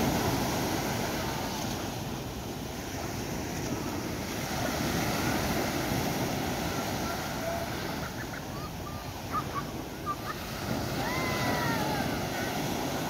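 Surf breaking and washing up a sandy beach, a steady rushing noise that swells and ebbs, with some wind on the microphone.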